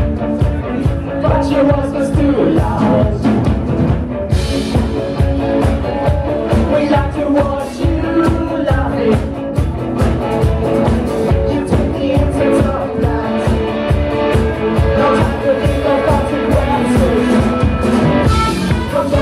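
Live rock band playing: drum kit keeping a steady beat under electric guitars and bass, with singing, and a trumpet joining near the end.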